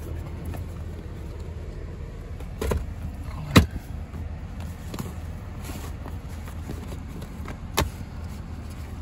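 BMW E38 740i 4.4-litre V8 idling steadily while it warms up. Three sharp clicks or knocks cut in, about a third of the way in, just after, and near the end, the middle one the loudest.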